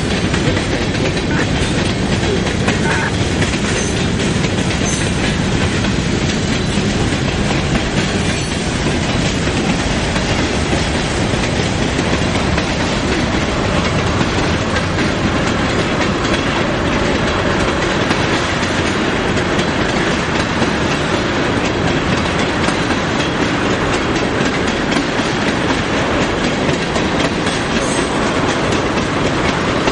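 Freight train cars rolling past close by: steel wheels on rail, with a steady loud rumble and rapid clicking of wheels over rail joints.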